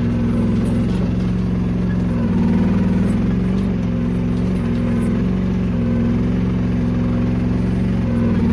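Small mini excavator engine running steadily at a constant speed.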